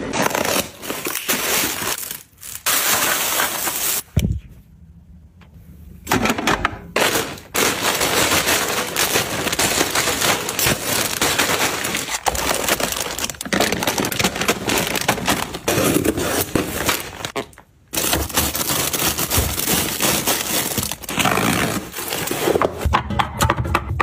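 Plastic snack packaging, potato chip bags, crinkling and rustling as they are handled, with a paper receipt rustling at the start. Near the end comes a quick run of clicks as drink cans are set down.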